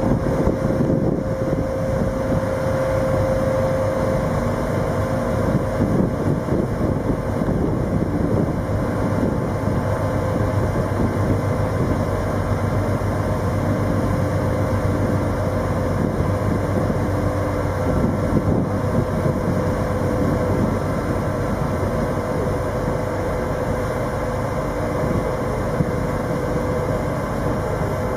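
A heavy engine running steadily, a low rumble with a steady hum.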